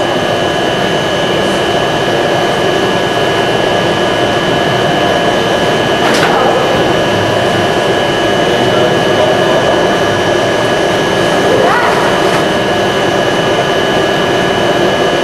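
Steady mechanical hum with a couple of constant high whining tones, with a single sharp click about six seconds in.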